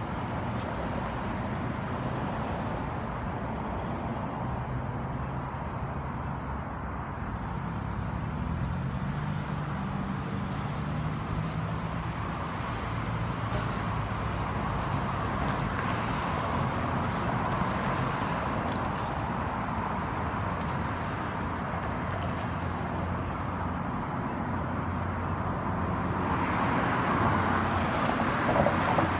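Road traffic: cars passing through the intersection, with a steady hum of engines and tyre noise that grows louder near the end.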